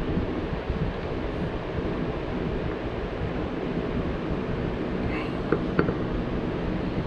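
Steady low rumbling noise, with two light clicks a little after five seconds in as a metal plastisol injector knocks against a glass measuring cup.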